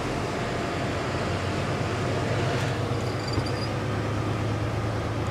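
Diesel engine of an HGV tractor unit running steadily at low speed, heard from inside the cab, with a constant low hum.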